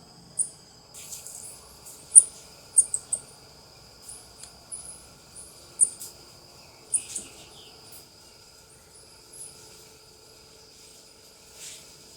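South American coatis (Nasua nasua) giving short, high-pitched chirps and squeaks, scattered irregularly, the loudest about two seconds in. Under them a steady high drone of crickets or other insects.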